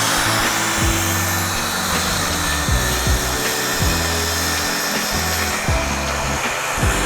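A power tool running steadily with a dense hissing noise, under background music with a bass line and drum beats.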